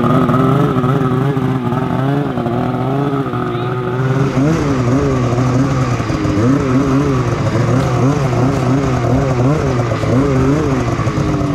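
Polaris Khaos 850 Turbo snowmobile's two-stroke engine running steadily, then rising and falling in pitch with the throttle from about four seconds in as the sled rides along.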